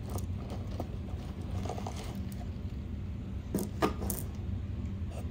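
Necklaces being handled and sorted: small clicks and rattles of jewelry, with two sharper clicks about three and a half and four seconds in, over a low steady hum.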